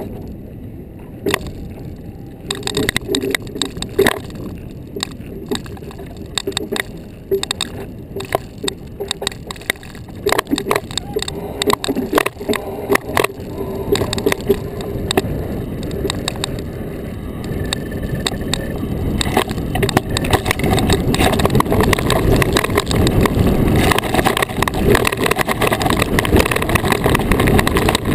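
Iceboat runners rumbling and scraping over lake ice, with many sharp clicks and knocks in the first half as the runners cross cracks in the ice. The rumble grows steadily louder in the second half.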